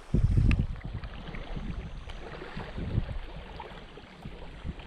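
Wind buffeting an outdoor microphone in low rumbling gusts, the strongest right at the start and another about three seconds in, over a steady hiss, with a few faint clicks.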